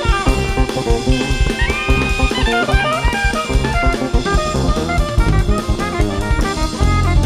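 Live jazz band playing: a busy drum kit with cymbals under a lead melody line that bends in pitch.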